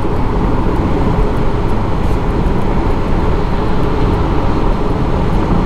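Steady road and wind noise inside a Tesla Model X cabin at highway speed, about 75 mph: an even rush heavy in the low end, with no engine note.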